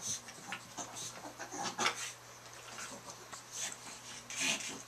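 A small dog and a ferret scuffling at play on a rug: irregular short rustling and scrabbling sounds.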